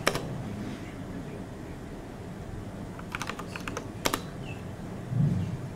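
Typing on a MacBook Pro laptop keyboard: a single keystroke at the start, then about three seconds in a quick run of keystrokes ending in a sharper press, like a short terminal command entered with the return key. A dull low thump follows near the end.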